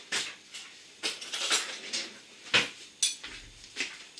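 A metal utensil clinking and scraping against a bowl of beaten eggs: about a dozen short, irregular clicks.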